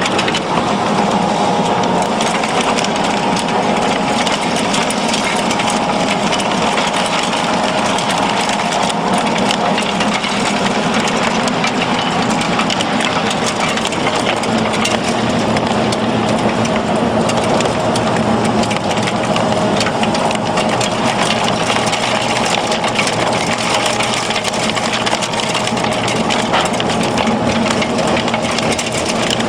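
Wood pellet machinery running steadily: a continuous mechanical hum with a fast, even rattle and no change in load.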